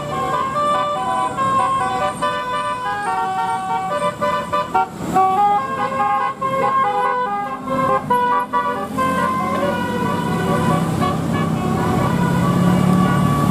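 Indonesian bus 'telolet' horn, a set of air horns playing a quick melody of short stepped notes. A low steady drone runs underneath and grows louder in the last few seconds as the melody fades.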